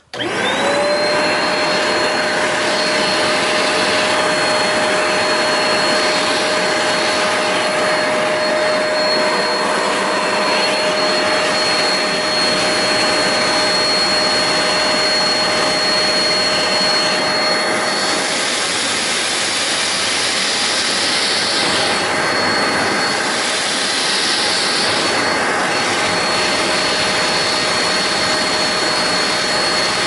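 Hoover Spotless portable carpet spot cleaner switched on, its suction motor spinning up within the first second to a steady whine over a rushing hiss, running on as the nozzle works the carpet.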